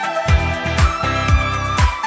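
Background music with a steady dance beat: a kick drum about twice a second under sustained melodic notes, with no singing.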